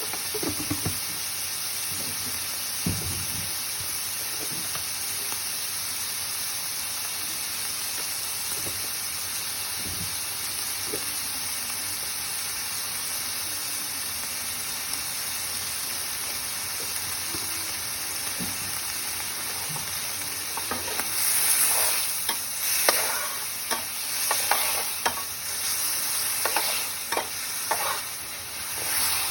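Pork and morning glory stir-fry sizzling in a hot pan, a steady hiss. About two-thirds of the way in it turns louder and uneven, with surges of sizzle and short scrapes and knocks as the food is stirred and tossed.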